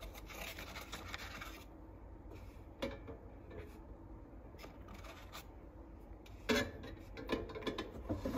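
Eggs being lifted from a cardboard egg carton and set into an air fryer's metal basket: soft rubbing and scraping with a few light knocks, the sharpest about six and a half seconds in and several more near the end.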